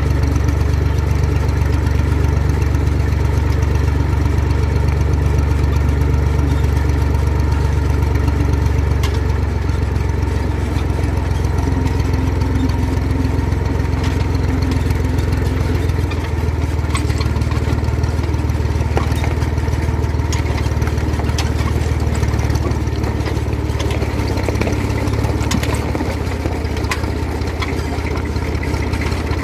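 Engine of the vehicle towing a sand-loaded trailer, running steadily under load. From about halfway through, scattered clicks and rattles join it as the trailer rolls over a rough gravel surface.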